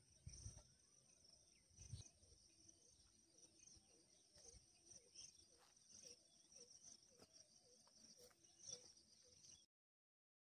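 Faint, steady trilling of insects such as crickets, with a few soft low thumps in the first two seconds. The sound cuts off abruptly near the end.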